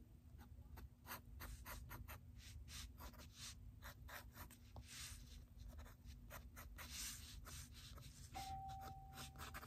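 Sharpie marker drawing on sketchbook paper: faint scratchy strokes, many short quick lines in an irregular rhythm.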